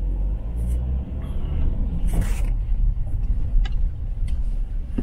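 Vehicle cabin sound while driving on an unpaved dirt track: a steady deep engine and tyre rumble, with a brief hiss about two seconds in and a few light knocks and rattles.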